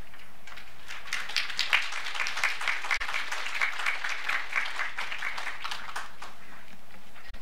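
A crowd applauding, dense clapping that starts about half a second in and dies away about six seconds in.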